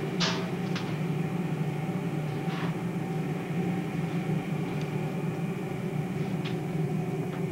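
Steady low machine hum, with a few brief soft noises over it, the loudest just after the start.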